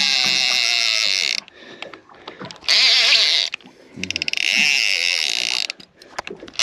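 Spinning reel's drag buzzing as line is pulled off in three runs, about a second and a half, a second, and a second and a half long, with short pauses between. A hooked fish, which the angler reckons is a shark, is taking line.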